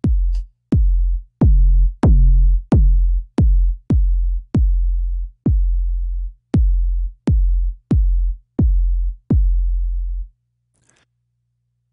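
Synthesized kick drum from Logic Pro's ES2 synthesizer, a sine tone with a fast downward pitch drop, played as repeated hits about one and a half a second. The hits get louder and fuller about a second and a half in as distortion is added. They stop shortly before the end.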